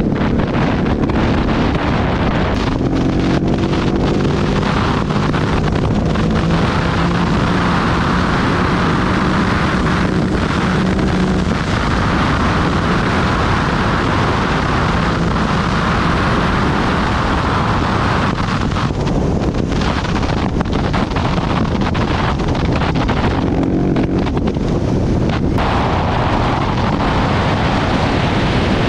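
Rally motorcycle engine running under way, its note rising and falling a few seconds in and again later on, half buried in heavy wind buffeting on the microphone.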